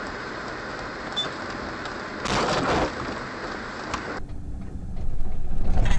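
Steady road and engine noise from a moving car, with a brief louder burst of noise about two and a half seconds in. Near four seconds the sound cuts to a different clip, where a deeper rumbling noise grows louder.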